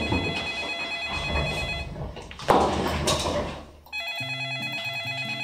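Desk landline telephone ringing with an electronic trill: two rings of about two seconds each, with a short burst of noise between them.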